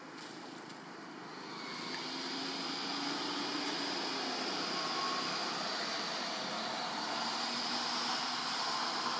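A steady engine drone that swells over the first two seconds and then holds.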